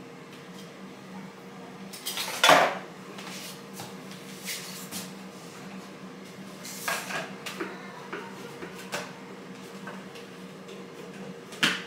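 Kitchen clatter: a tin can and a blender jug knocking and clinking as canned tomatoes are emptied into the blender and its lid is fitted on, in a handful of separate knocks with the loudest about two and a half seconds in. The blender motor is not running.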